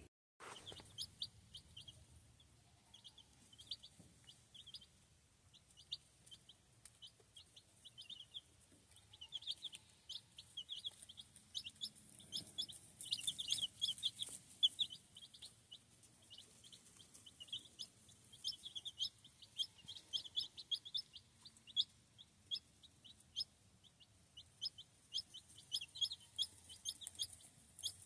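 A brood of young Rhode Island Red and California Tan chicks peeping: many short, high peeps overlapping several times a second, growing busier about halfway through.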